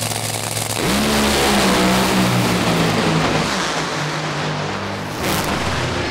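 Top Fuel dragster's supercharged nitromethane V8 at full throttle, coming in suddenly and loudly about a second in; its note holds, then drops after a couple of seconds, with a short burst of noise near the end.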